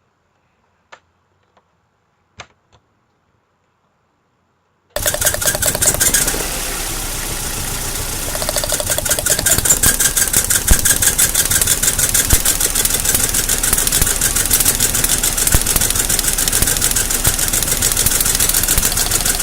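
Two faint clicks, then a Mazda Protege's four-cylinder engine suddenly heard idling roughly with a fast, even ticking over it. The ticking is the lifted cylinder 2 spark plug wire arcing, a wire fault that causes the cylinder 2 misfire and rough idle.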